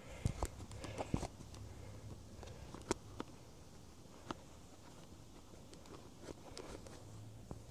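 Scattered knocks and taps of boots and loose gear shifting on the floor of a small boat, a few sharp ones in the first seconds, over a faint low hum.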